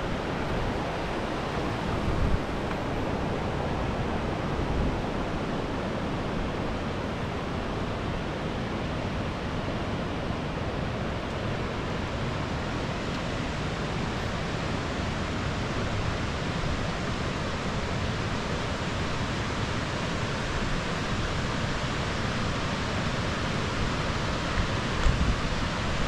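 Waterfall: a steady rush of falling water. A few low bumps of wind on the microphone come near the start and near the end.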